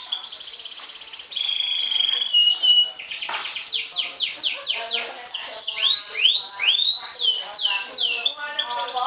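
Domestic canary singing: a fast trill, then a held whistle, then a quick series of falling notes that slow into longer swooping notes, and another fast trill near the end.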